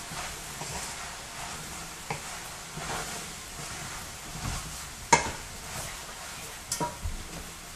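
Wooden spoon stirring chicken gizzards in a sizzling tomato and sofrito sauce in a pot: a steady frying sizzle with scraping, and a sharp knock of the spoon against the pot about five seconds in, then a few lighter knocks.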